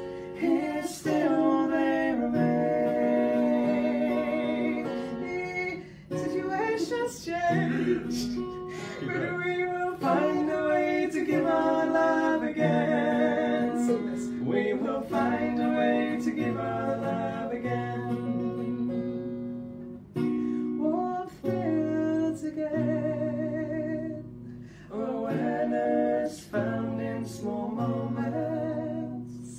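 A woman singing a slow song to an acoustic guitar accompaniment, her voice holding long, wavering notes with short breaks between lines.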